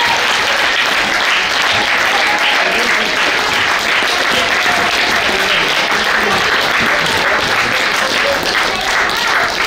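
Crowd of spectators applauding steadily, with a few voices mixed in.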